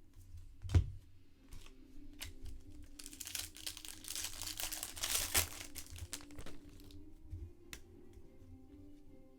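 A single thump about a second in, then a few seconds of crinkling and tearing as a foil trading-card pack wrapper is ripped open and handled.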